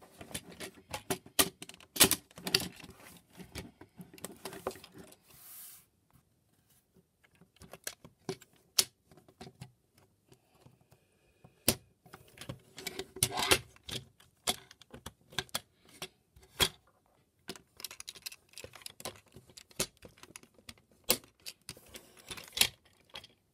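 Hard plastic clicking and clacking as a Transformers Siege Ultra Magnus action figure's parts are folded and snapped into place by hand. The clicks come in irregular runs, thickest at the start and again about halfway through.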